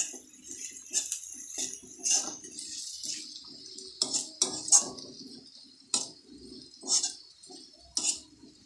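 Steel spoon scraping and clinking against a kadai while stirring frying onions, garlic and ginger with chilli powder. The sharp clinks come roughly once a second, the loudest a little before the middle, over a steady sizzle of hot oil.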